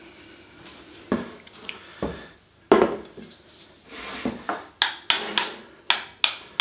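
Crockery and cutlery handled on a table: separate knocks, the loudest about three seconds in as a plate is set down, then a quick run of sharp clicks near the end.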